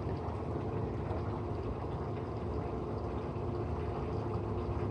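Steady low hum with a running-water noise underneath, without a break.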